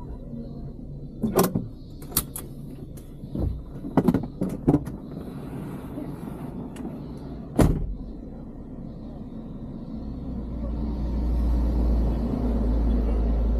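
Door clicks, knocks and clunks from a Wuling Hongguang van as its door is opened and someone gets out, with several sharp clicks in the first five seconds and one heavier thump about seven and a half seconds in. A low rumble builds near the end.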